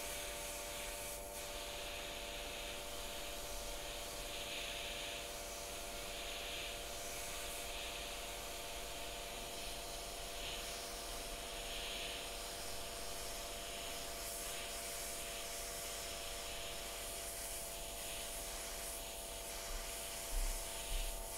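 Hot air rework gun blowing a steady hiss of hot air with a faint steady hum beneath it, while it reflows the solder under a controller chip on a USB flash drive's board. A couple of brief louder sounds come near the end.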